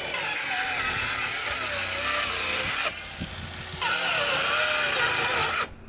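Cordless circular saw cutting through OSB roof sheathing in two passes, each a few seconds long, with a short pause about three seconds in. The motor's pitch wavers as the blade loads in the wood.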